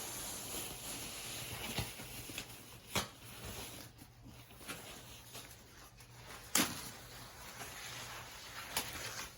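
Wrapping material rustling as a new handbag is unwrapped by hand, with a few sharp clicks and taps scattered through it.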